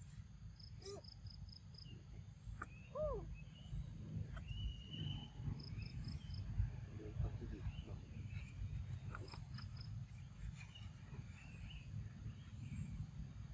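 Outdoor ambience in a forest clearing: insects chirping in short runs of high ticks, scattered short bird or animal calls, including one arching call about three seconds in, over a steady low rumble.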